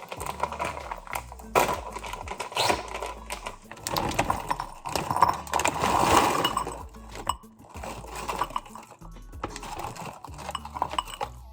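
Background music with a stepping bass line over irregular, rapid clattering and knocking, loudest in the middle, from kitchen work.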